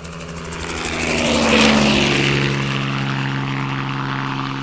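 Intro sound effect of an engine drone sweeping past: it swells to its loudest about one and a half seconds in, its pitch dropping as it goes by like a fly-past, then holds a steady drone.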